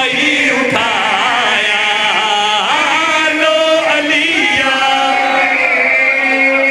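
A group of men chanting a devotional refrain together into microphones: a zakir and his backing reciters singing in unison, ending on long held notes.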